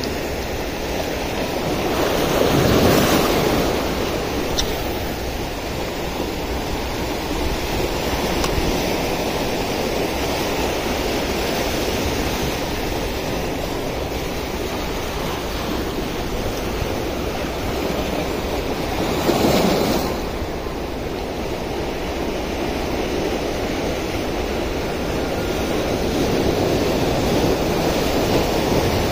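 Sea surf washing over shoreline rocks in a steady rush, with two louder waves breaking, about three seconds in and again about two-thirds of the way through.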